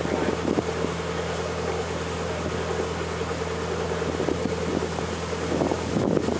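Narrowboat's engine running steadily as the boat cruises slowly along the canal, a constant low hum. Wind buffets the microphone near the end.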